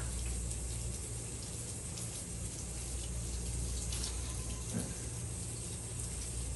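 Steady rain with water running, a continuous even hiss over a low hum, with a soft knock about five seconds in.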